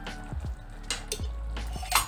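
Background music with low drum beats and held tones, with a few sharp clicks over it.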